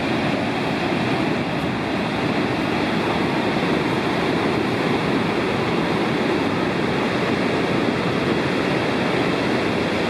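Victoria Falls, the Zambezi River plunging into its gorge: a steady, unbroken rush of falling water.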